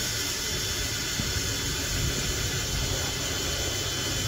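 Makita cordless drill running steadily, its bit boring a pilot hole through the plastic front bumper cover and its paint protection film, an even whirring hiss.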